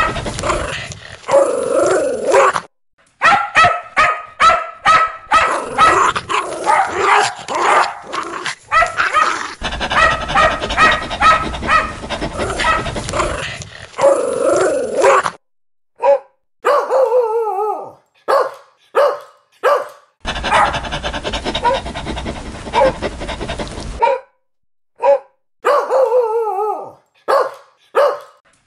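Dogs barking aggressively over and over, mostly short sharp barks in quick runs, with a few longer barks that bend in pitch. The background hiss cuts in and out abruptly where separate recordings are joined.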